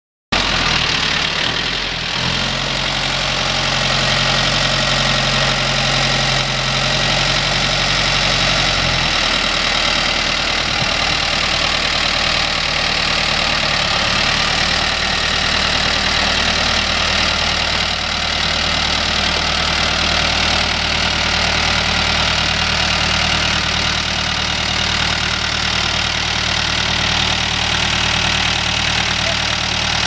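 2003 Taishan TS354C tractor's four-cylinder Yangdong diesel engine idling steadily, its note shifting about a third of the way through.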